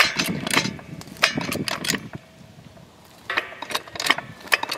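Floor jack and heavy chain working a steel T-post upward: a run of sharp metallic clicks and clinks, with a pause of about a second in the middle before the clicking resumes.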